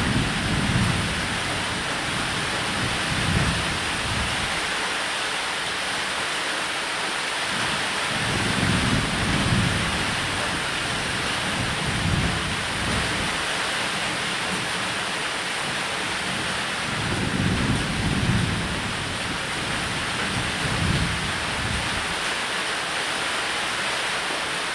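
Steady heavy rain with low rolls of thunder rumbling up every few seconds, about six times.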